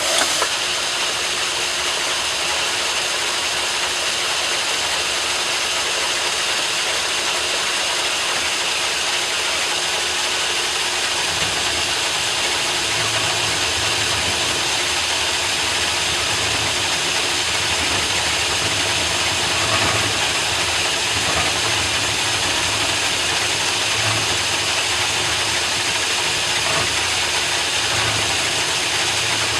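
Metal lathe starting abruptly and running steadily, turning a steel bar for a finishing cut with about 15 thousandths of an inch left to remove; a low pulsing joins the steady machine noise about a third of the way in.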